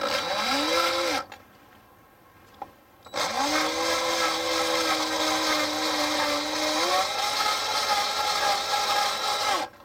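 Cordless drill boring into 1/4-inch steel plate at low speed under heavy downward pressure, starting the hole. A short run that spins up in the first second, a pause, then a steady whine of about six seconds that steps up slightly in pitch near the end before stopping.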